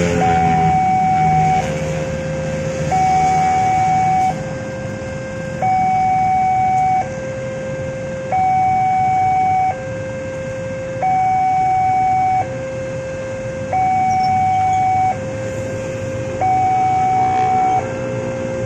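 Level-crossing warning alarm sounding a steady two-tone chime from the signal post's loudspeaker, alternating a higher and a lower tone about every 1.3 s: the warning that a train is approaching and the barrier is down. Motorcycle engines pass near the start and again near the end.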